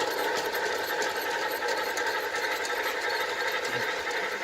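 G-scale Bachmann model locomotive running on its track, a steady mechanical hum with faint rapid clicks.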